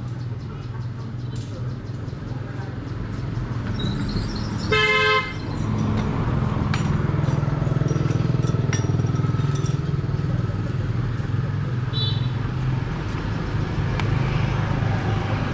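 A vehicle horn honks once, briefly, about five seconds in, over the steady low rumble of a running engine that grows louder after the honk.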